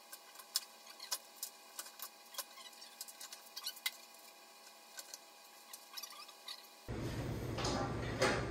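Scattered faint clicks and light metal knocks as an Evo Sportster 1200 engine is lifted and worked into a hardtail frame by hand. About seven seconds in, a louder steady background hum comes in abruptly, with a couple more knocks.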